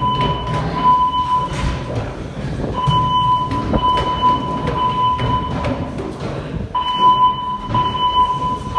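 Fire alarm speaker strobes (System Sensor SPSR) sounding their evacuation tone between voice announcements. The tone is high and steady, sounding in blocks of about two and a half seconds with about a second's pause, and repeats roughly every four seconds. Low thumps and rustling run underneath.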